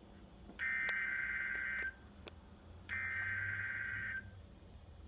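Emergency Alert System SAME header on NOAA Weather Radio: two bursts of digital data tones, each about a second and a quarter long, with a second's pause between them. The header encodes the Severe Thunderstorm Warning ahead of the alert tone and voice message.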